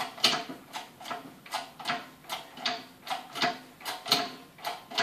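Pump of a 50-ton hydraulic shop press clicking in a steady rhythm, about two or three strokes a second, as it builds pressure to swedge a Model A hub into a cast iron brake drum.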